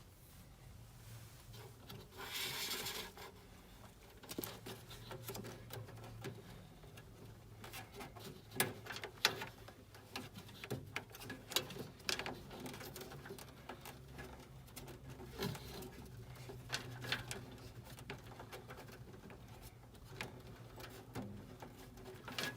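Scattered clicks, knocks and rustling of hands at work, with a brief rustling hiss about two seconds in, over a steady low hum.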